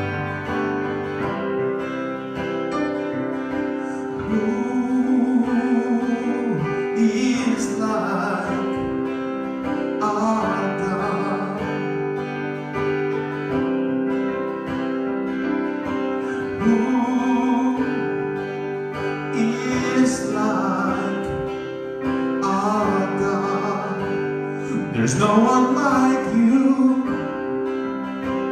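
Live church worship band playing a slow song: guitars over held chords.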